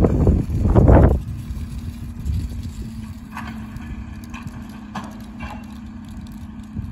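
Waste-collection truck's engine running steadily, a low hum heard from a distance, with a few faint knocks a few seconds in. A loud rush of noise in the first second cuts off suddenly.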